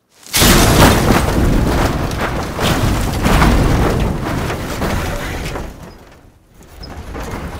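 SUV rolling over down a hillside: a sudden loud crash breaks the silence, followed by several seconds of heavy repeated impacts as the vehicle tumbles. The crash dies away about six seconds in, and a quieter sound rises near the end.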